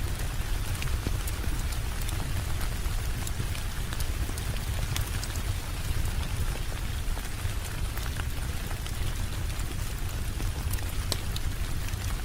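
Heavy rain falling steadily over a constant low rumble, with scattered sharp crackles like wood-fire pops.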